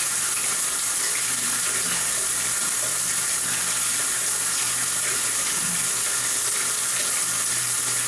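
Water from a leaking shower head splashing steadily onto the shower floor as a constant hiss. The valve is turned off but not shutting off all the way, so a constant stream still comes out.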